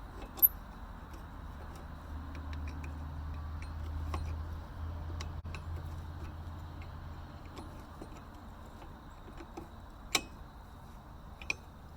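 Scattered small metallic clicks and clinks of hand tools being worked against steel parts, one sharp click about half a second in and a few more near the end. Under them a low rumble swells and fades in the middle.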